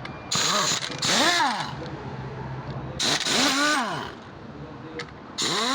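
Car engine revved in three quick throttle blips, the pitch rising and falling each time, with a strong hiss alongside. The mechanic takes the gas escaping to be blow-by from a holed piston, needing new piston rings.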